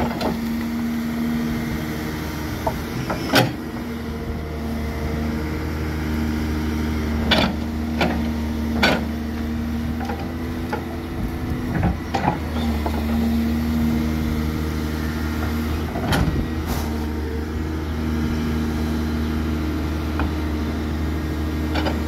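Backhoe's diesel engine running steadily while it digs in manure, with several sharp knocks and clanks scattered through.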